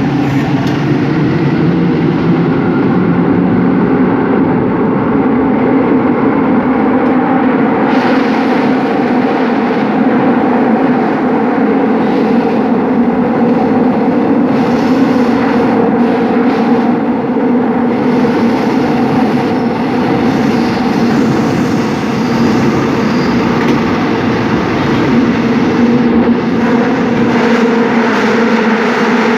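Seoul Subway Line 5 train running steadily through a tunnel: even rumble of wheels on rail with a steady motor hum.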